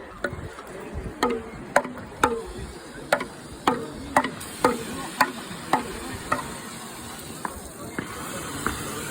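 A rapid series of sharp knocks or cracks, about two a second, each with a short falling ring, stopping about six and a half seconds in, over a steady background hiss.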